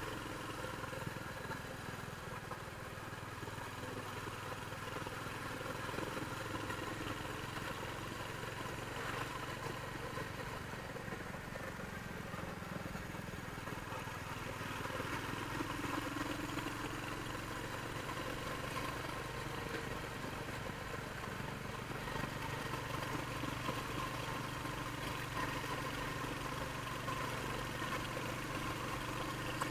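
Royal Enfield Hunter 350's single-cylinder engine running steadily through its stock exhaust, a low, even drone without sharp revving.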